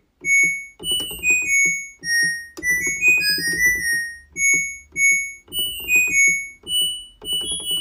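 Music: a plinky synthesizer or electric-piano melody of short, quick high notes over a low beat.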